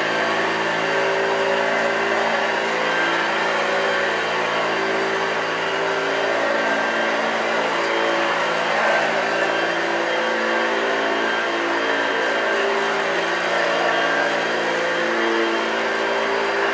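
1982 Hoover Junior U1104 upright vacuum cleaner running steadily, its motor droning with a slightly wavering pitch over a steady rush of air.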